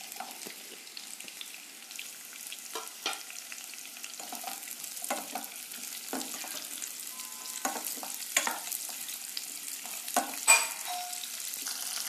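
Chopped onion sizzling in hot oil in a kadhai, stirred with a spatula that clacks and scrapes against the pan. The sizzle grows louder as it goes on, and the sharpest knock of the spatula comes near the end.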